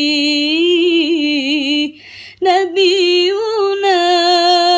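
A single high voice singing an Arabic sholawat without accompaniment, drawing out long notes with wavering ornaments. It breaks for a breath about two seconds in, then goes on with another long held note.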